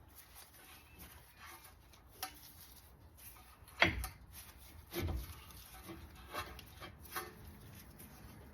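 Scattered knocks and clicks from front brake parts being handled and fitted. The loudest is a sharp knock a little under four seconds in, with another about a second later.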